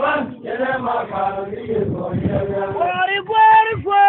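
Men's voices chanting or singing together. Near the end they rise into a high note held for about half a second.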